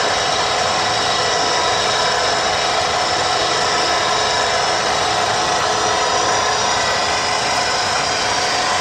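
Electric pipe threading machine running steadily, its motor and gearing giving a constant whine.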